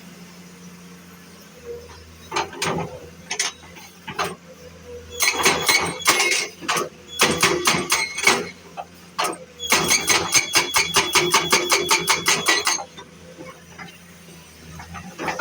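Repeated metallic strikes with a ringing tone, from a metal tool in road-repair work: a few scattered knocks, then runs of quick strikes, about six a second, the longest lasting some three seconds near the end, over a low steady hum.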